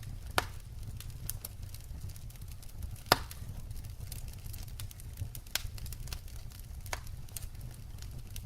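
Wood fire burning: a steady low rumble with irregular sharp crackles and pops from the logs, two louder pops about half a second and three seconds in.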